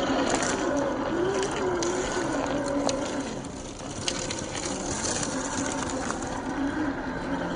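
Small electric motor and gearbox of an RC 4x4 jeep whining, the pitch rising and falling with the throttle, with scattered clicks.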